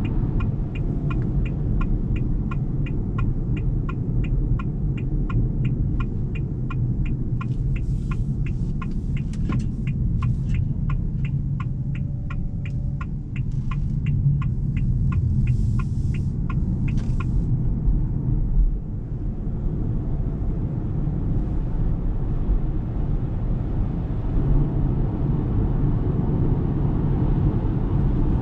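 Steady road and tyre rumble inside the cabin of a 2023 Ora Good Cat electric car on the move. Over it the turn-signal indicator ticks about twice a second, stopping a little past the middle.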